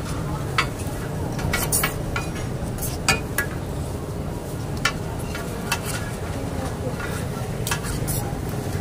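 Metal spatula and scraper clinking and scraping against a large flat iron griddle (tawa), irregular sharp clinks every second or two, sometimes in quick pairs, over a steady background hiss.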